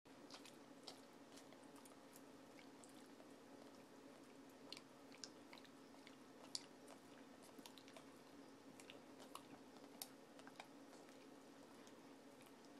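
Boxer dog licking and smacking peanut butter off a spoon: faint, irregular wet clicks and smacks of tongue and mouth, a few of them louder.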